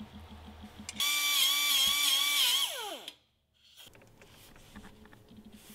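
A handheld high-speed power tool runs with a slightly wavering whine for a little under two seconds, then is released and spins down, its pitch falling steeply until it stops.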